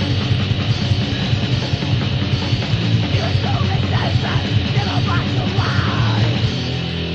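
Crust punk recording from a compilation tape: fast, heavily distorted guitars, bass and drums with shouted vocals, loud and steady throughout.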